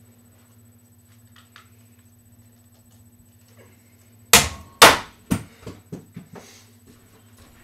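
A thrown object hitting something hard and clattering down: two loud knocks about half a second apart, a third, then a few fainter knocks coming quicker and fading out, as of the object bouncing to rest.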